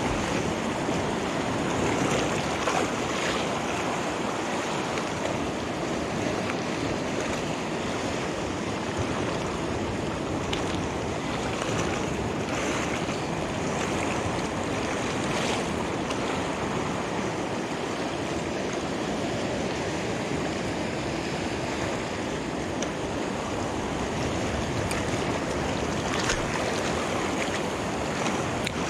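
Sea surf washing steadily over shoreline rocks, with wind on the microphone.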